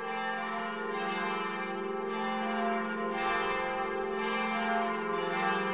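Church bells ringing, with a new strike about once a second over the steady hum of the bells ringing on.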